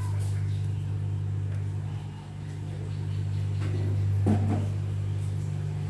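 A steady low hum runs throughout, with a short burst of small clicks or clatter about four seconds in.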